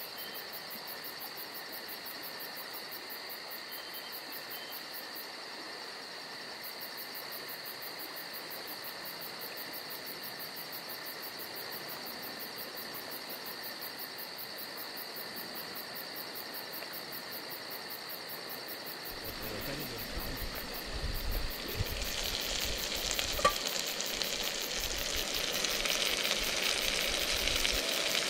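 Camp-stove cooking: a steady hiss that grows louder and rougher over the last several seconds, with a single sharp clink of cookware about two-thirds of the way through.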